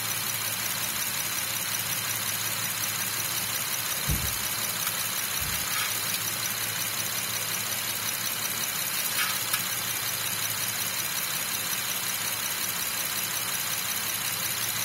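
Honda Elysion engine idling steadily, warm and freshly topped up with new oil, heard close up in the open engine bay. Two short low thuds about four and five and a half seconds in.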